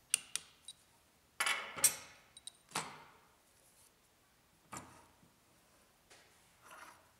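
Small metal clinks and scrapes as the feed-handle hub of a vintage Delta drill press is worked loose with a steel pin and taken off its shaft. About five separate sounds, the loudest a scrape between one and a half and two seconds in.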